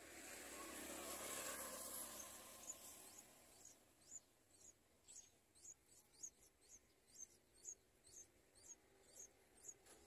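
Yellow-vented bulbul nestlings begging in the nest with faint, thin, high cheeps repeated about twice a second, starting a few seconds in. Over the first three seconds a soft rush of noise swells and fades.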